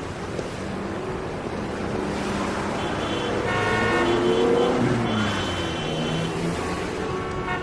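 Rush-hour city traffic: a steady rumble of car engines and tyres, with car horns honking in stretches from about three seconds in and again near the end.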